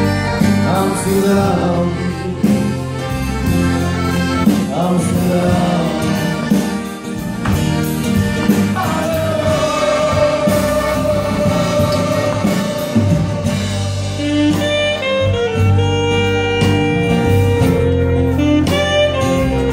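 Live band music: a singer over accordion and acoustic guitar, with a saxophone playing long held notes in the second half.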